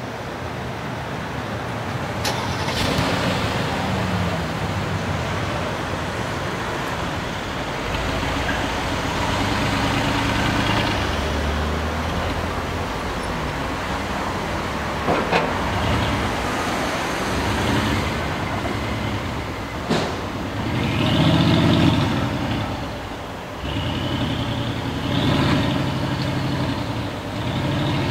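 Brabus 700 6x6's twin-turbo V8 running at low speed, its pitch rising and falling as it pulls away and revs several times. The loudest rev comes about three quarters of the way through, and a few sharp clicks are heard along the way.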